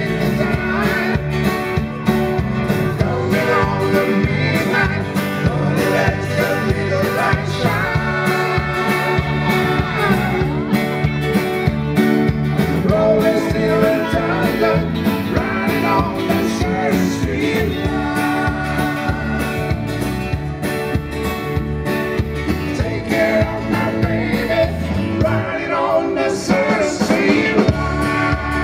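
Live country-rock band playing through a PA: electric guitars, fiddle and drums, with a singer.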